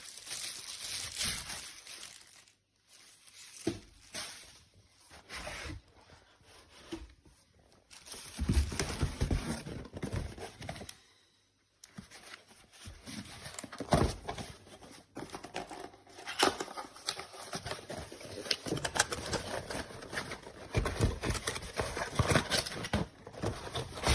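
Product packaging being handled and unpacked: irregular rustling, crinkling and tearing, with a brief pause about halfway.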